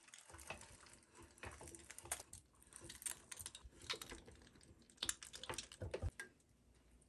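Faint, irregular wet clicks and squishes of ground pot roast meat being forced through a sausage stuffer's tube into the casing, with the casing handled as it fills.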